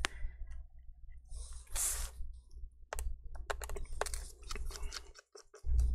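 Torx T5 screwdriver working the small screws of a Dell XPS laptop's metal bottom cover as they are unscrewed. A brief scrape about two seconds in, then a run of light, sharp clicks.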